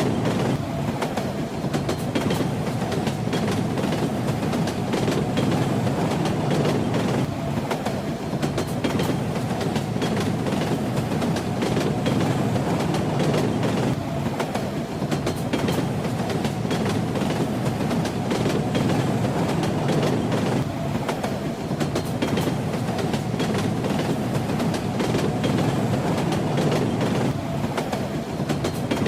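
Train ride: steady rumble of a moving railway car with the clickety-clack of the wheels over rail joints.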